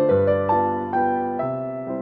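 Piano music: a slow melody, a new note about every half second, over held low notes.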